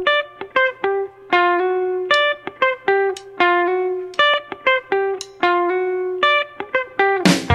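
Background music: a guitar picking a melody of single notes, a few a second, with the full band and drums coming in near the end.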